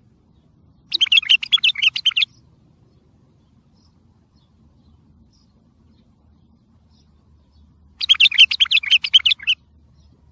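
Wild bulbul singing: two short phrases of rapid, quick-changing notes, each about a second and a half long, the first about a second in and the second near the end, with a pause between.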